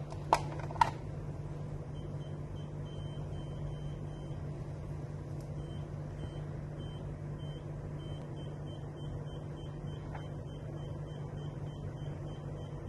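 Two sharp clicks near the start, then a burglar alarm panel or keypad giving a run of short, faint, high beeps, about two to three a second, over a steady low hum.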